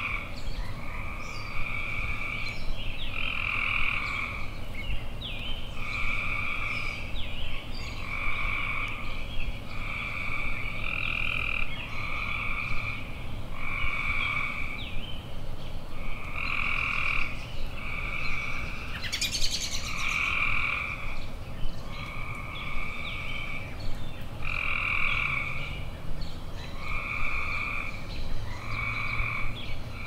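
A chorus of tree frogs calling: each call lasts about a second and repeats about every second and a half, steady throughout. Birds chirp faintly in the background.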